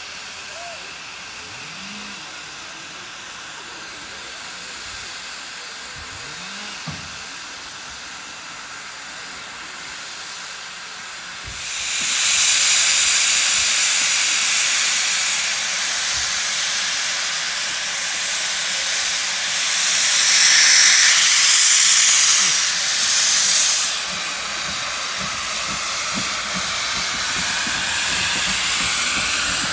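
Saddle-tank steam locomotive Sir Cecil A. Cochrane hissing steam. About twelve seconds in, a much louder hiss starts suddenly as steam blows from its open cylinder drain cocks. It is loudest from about twenty to twenty-four seconds in, then drops back to a softer steady hiss.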